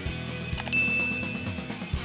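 Background music with a steady beat. A bright single ding rings out a little under a second in and holds for about a second.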